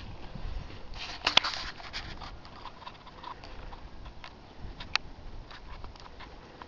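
Footsteps on cobblestone paving: irregular sharp taps and clicks, the loudest about a second in and another near the end.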